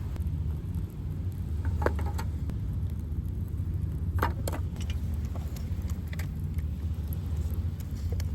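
A steady low rumble under a few short, light clinks and rattles of barbecue gear being handled as the fire is got going.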